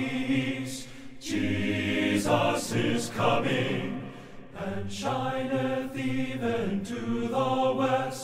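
Choir singing long, held notes with musical backing: the opening of a gospel song about Christ's return.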